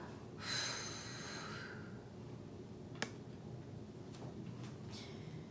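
A person's breathy exhale lasting about a second and a half, followed by a single small click about three seconds in.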